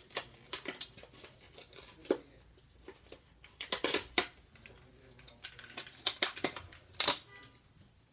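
Clear plastic toy packaging crinkling and crackling as it is handled and pulled open, in irregular bursts, the loudest around four and seven seconds in.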